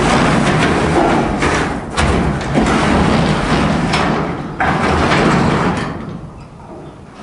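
Wooden chicken tractor with a metal roof being rolled on its wheels across a gravel floor: a steady rolling noise with a few knocks. It dies down near the end as the tractor stops.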